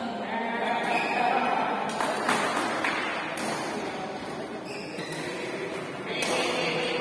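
Many voices chattering in a large echoing hall, with a few sharp knocks scattered through it, about two seconds in, at three and a half seconds, and near the end.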